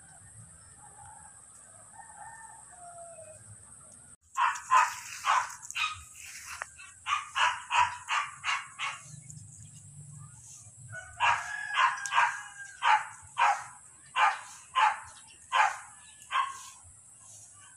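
Runs of short, sharp animal calls, each a fraction of a second long, starting suddenly about four seconds in and coming in three bouts several times a second.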